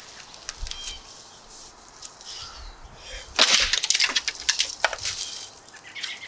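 Restored 1920s Kelly Axe and Tool Co. bush axe (brush hook) chopping into the stem of a sapling. One loud, sharp woody crack comes about three and a half seconds in, followed by a few smaller knocks over the next second and a half.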